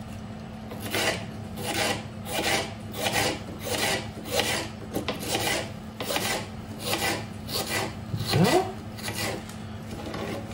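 Kitchen knife slicing a red onion into thin rings on a plastic cutting board: a steady run of short cutting strokes, a little under two a second.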